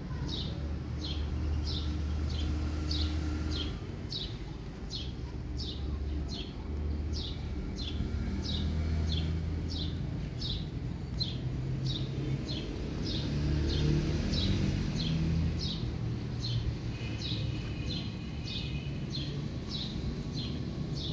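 A bird calling over and over, one short falling note repeated evenly nearly twice a second, over a low steady hum.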